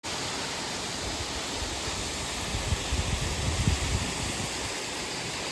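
Steady rush of falling water, as at a waterfall, with some low rumbling on the microphone between about 2.5 and 4 seconds in.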